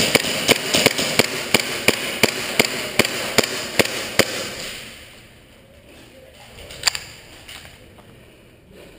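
Airsoft gunfire: a steady string of sharp pops, about three a second, that stops about four seconds in. After it comes quieter shuffling, with a single knock near seven seconds.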